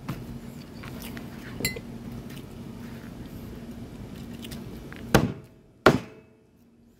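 Meat cleaver chopping grilled jerk chicken thighs on a plastic cutting board: a few light knocks, then two sharp chops in quick succession about five seconds in.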